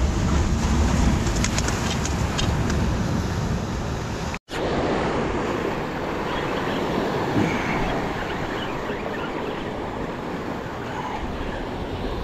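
Sea surf washing over jetty rocks with wind buffeting the microphone, a steady rumbling wash. The sound cuts out completely for a moment about four seconds in, then the surf and wind resume.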